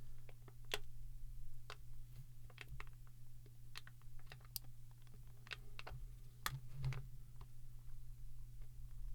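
Irregular small clicks and taps of plastic as a tool pries at the snap-fit pieces of an ink cartridge's housing, over a steady low hum.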